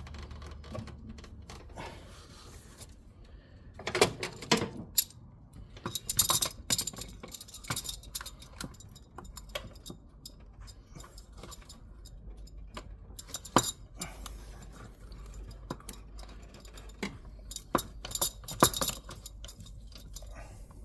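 Metal hand tools clinking and knocking in irregular clusters against metal parts of an engine bay, with a few louder clanks about four seconds in and again near the end.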